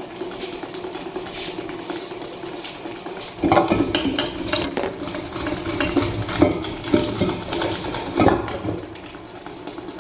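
Electric stand mixer running, its motor humming steadily as it whips sponge cake batter with a wire whisk in a steel bowl. From about three and a half seconds in, loud irregular metallic clattering and knocks as the steel bowl is handled on the mixer, easing off near the end.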